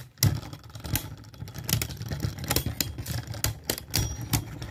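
Two Beyblade Burst tops, Vanish Fafnir and Cyclone Ragnaruk, spinning against each other in a stadium, with rapid irregular clicking and knocking as they rub and collide, over a low steady hum.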